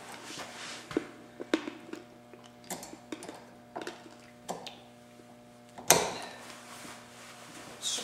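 Light metal clicks and taps of a spacer being handled and slid onto the Porsche 356 crankshaft's gear end, with a loud clank about six seconds in, over a faint steady hum.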